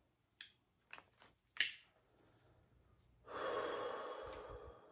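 A man eating breathes out long and breathily through rounded lips for about a second and a half near the end, after a few faint mouth clicks and smacks as he eats.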